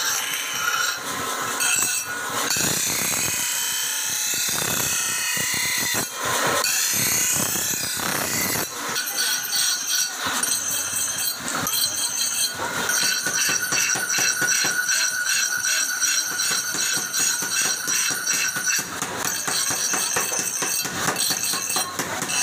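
Steel hoe blades ground against a belt-driven bench grinding wheel, a continuous harsh grinding with a steady high whine through the middle part.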